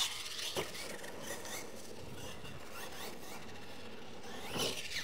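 Radio-controlled monster truck on a dirt track: a knock about half a second in as it comes down from a jump, then the faint sound of its motor and tyres on the dirt, the motor whining up near the end.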